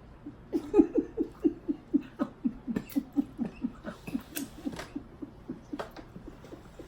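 A person laughing in a long, even run of short 'ha' pulses, about four a second, loudest at the start and tapering off.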